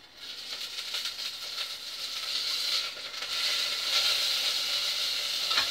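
Sausages frying in a pan: a steady sizzle that starts just after the beginning and grows louder.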